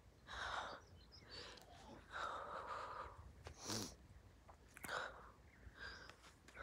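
Faint breathing close to the microphone: several soft breaths about a second apart, with a few light clicks.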